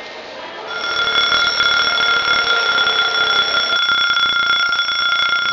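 Electric bell ringing with a fast, rattling ring. It starts under a second in and rings steadily on.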